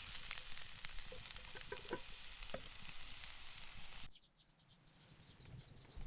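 Grützwurst sizzling as it fries in a pan, a steady hiss with scattered pops. About four seconds in it cuts off suddenly to a much quieter background with faint ticks.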